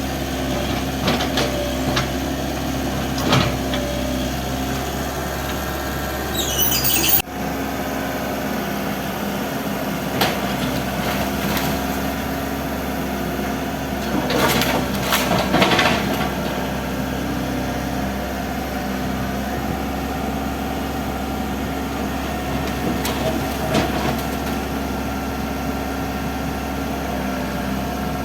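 Excavator's diesel engine running steadily, with scattered sharp knocks and a cluster of clatter about halfway through as it demolishes a building. A short rising whine near a quarter of the way through cuts off suddenly.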